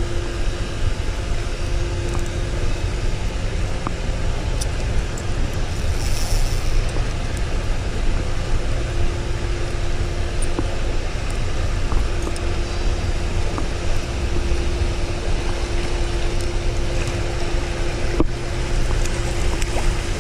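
Steady rush of fast creek water running below a spillway, heaviest in the low end, with a faint steady hum and a few light clicks.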